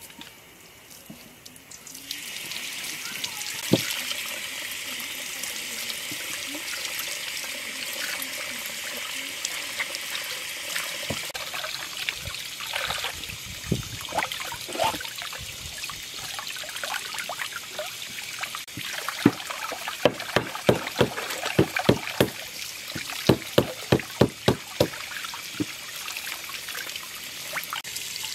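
Water running from an outdoor brass tap and splashing over a raw plucked duck as it is rinsed and rubbed by hand. The flow starts about two seconds in and stays steady, and in the second half there is a run of sharp wet splashes, two or three a second.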